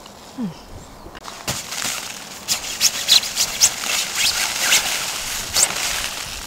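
Tent fabric rustling and flapping as it is pushed up from inside to knock built-up snow off: a run of sharp swishes starting about a second in.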